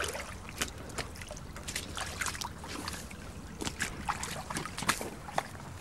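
Boots stepping through shallow creek water: irregular small splashes and drips, several a second.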